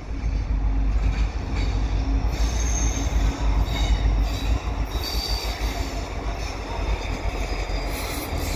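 Pair of CN EMD diesel locomotives, an SD75I leading an SD70M-2, drifting closer with no train behind them: a steady deep diesel rumble, with a thin, faint wheel squeal off the rails in the middle.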